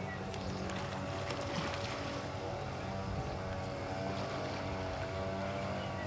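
A steady engine hum that holds an even pitch throughout, like a motorboat engine running.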